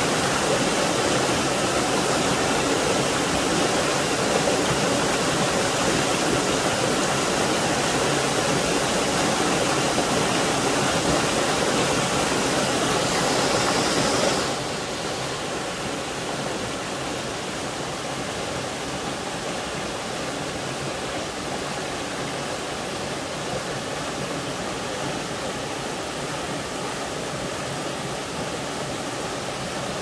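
Small waterfall in a rocky mountain stream, water spilling over boulders into a pool with a steady rushing splash. About halfway through it drops to a softer, still steady level.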